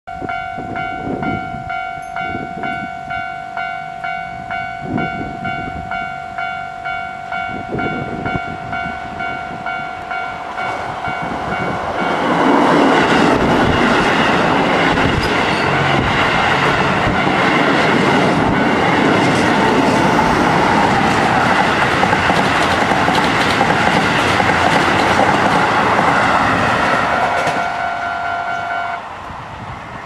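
A level-crossing electronic bell rings in a steady, evenly pulsing pattern, about two strokes a second. About twelve seconds in, a Keisei 3000 series electric train passes close by for about fifteen seconds, its wheels clattering loudly over the rail joints over the bell. The bell stops near the end.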